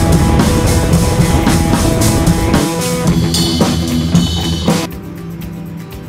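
Rock music with a drum kit and guitar, beating steadily. The level drops sharply about five seconds in, and quieter music carries on.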